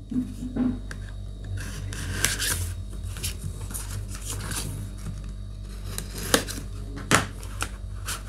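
A blade slitting the paper seal stickers on a cardboard box, then cardboard scraping and rubbing as the box is handled and opened, with scattered short scrapes and taps.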